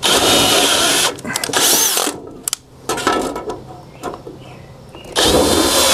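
Cordless drill spinning a sharp screw through thin aluminium overflashing to punch pilot holes. It runs in short bursts: two in the first two seconds, then another near the end.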